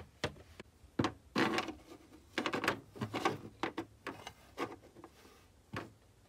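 Light clicks, taps and scrapes of plastic dolls and toy dollhouse furniture being moved by hand, with a few short rustling scrapes between the clicks.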